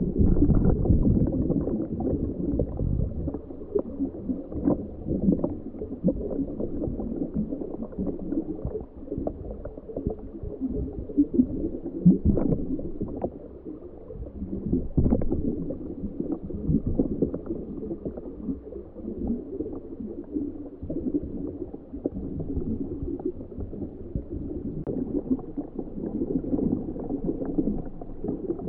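Muffled, gurgling underwater rumble heard through a homebuilt ROV's sealed camera housing while the ROV moves, with scattered light clicks. It is loudest in the first few seconds and again about twelve seconds in.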